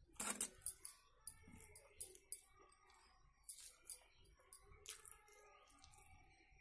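Eating by hand from a steel plate: fingers mixing rice and greens against the metal, making faint, irregular small clicks and scrapes, several close together in the first second.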